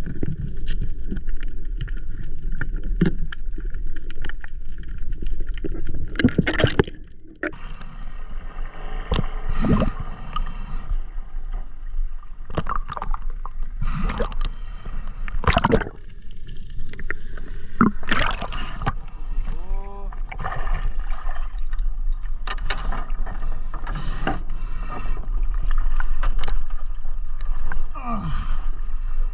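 Water sloshing and gurgling with a steady low rumble and irregular knocks and bumps.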